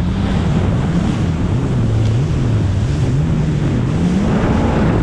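Yamaha VX Cruiser jet ski engine running at speed, its note rising and falling over and over as the craft rides through choppy waves, with water spray rushing and wind buffeting the microphone.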